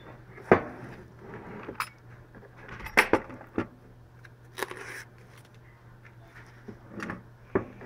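Scattered knocks and clicks from handling: a foam-packed supercapacitor bank is worked out of a metal ammo can, with cables and parts bumping the box. The sharpest knocks come about half a second and three seconds in.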